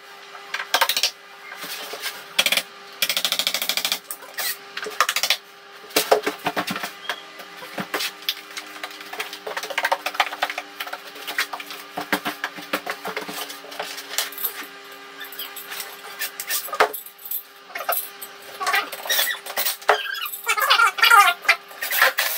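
Irregular knocks, clicks and clatter of tools and fittings being handled during work on a wall, with a faint steady hum underneath.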